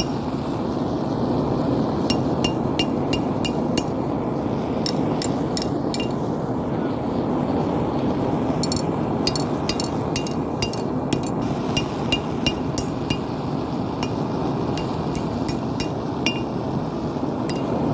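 Hammer striking a hot railroad spike on an anvil: irregular runs of sharp, ringing clinks, several strokes in quick succession, over a steady rushing noise.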